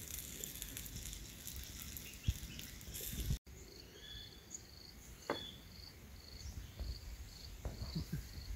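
Insects chirping: short high chirps repeating about twice a second. Before them, about three and a half seconds in, there is a sudden cut from a soft noisy background with a few faint knocks.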